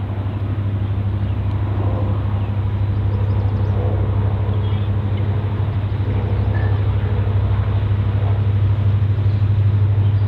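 Approaching EMD GP40 diesel locomotive, with its 16-cylinder engine, hauling a road slug and freight cars. It gives a steady low engine drone that grows slowly louder as the train draws nearer.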